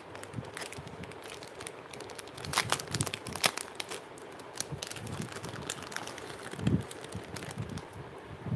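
Clear plastic jewellery packet crinkling and crackling as it is handled and opened, in irregular sharp crackles, with a dull bump about two-thirds of the way through.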